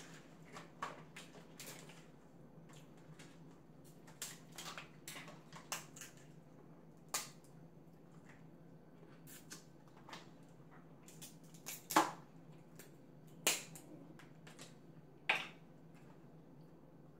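Crab leg shells being cracked and snapped apart by hand: an irregular string of sharp cracks and clicks, with a few louder snaps in the second half.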